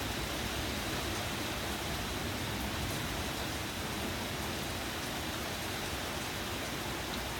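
Steady heavy rain from a thunderstorm, an even hiss of downpour on the ground and foliage with no break or rumble.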